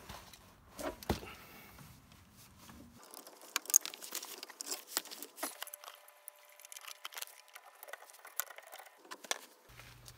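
Irregular clicks and light knocks of a sphere wrench and metal parts being handled as a Citroen hydraulic accumulator sphere is undone.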